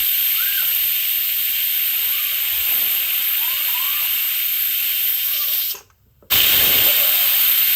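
Pressure cooker venting steam with a loud, steady hiss as the tapioca cooks under pressure; the sound breaks off briefly about six seconds in.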